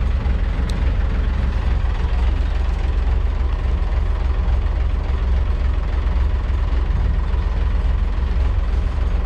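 Wooden ferry's diesel engine running steadily with a deep low rumble as the boat comes alongside the pier.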